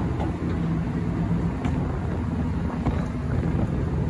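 Party fishing boat's engine running with a steady low hum.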